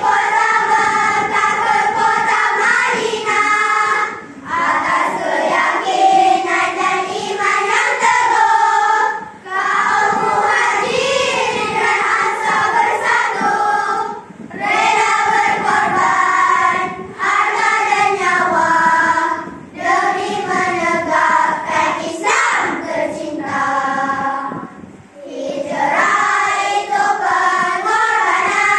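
A group of schoolchildren singing a Malay nasyid together, in phrases of about five seconds with short breaks between them.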